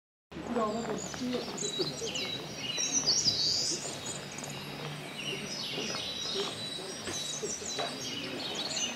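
Forest birds singing and calling, many short high chirps overlapping, with a faint steady high tone beneath them. It all starts abruptly just after the beginning.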